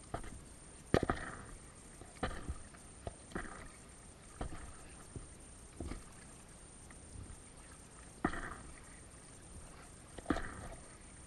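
Kayak paddle blades dipping and splashing into the water stroke after stroke, one splash about every one to two seconds at an uneven pace, close to the inflatable kayak's hull.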